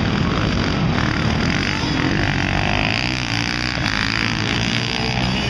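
Several supermoto motorcycles racing past, their engines revving up and down through the gears.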